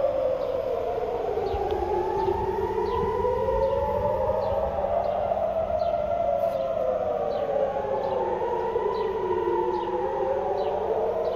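Civil-defence rocket-alert sirens wailing: two sirens slowly rising and falling in pitch over several seconds each, out of step with one another, warning of incoming rockets.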